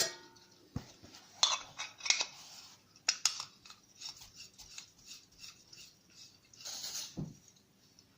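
Small titanium camping stove and gas canister being handled, making a series of light metallic clicks and clinks. A brief hiss comes about seven seconds in.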